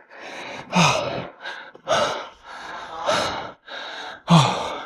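A man breathing hard after a heavy set of leg exercises: deep, noisy breaths about once a second, some starting with a short voiced gasp.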